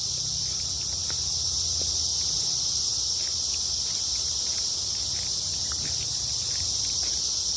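Chorus of periodical cicadas: a steady, high-pitched, unbroken drone of many insects calling together.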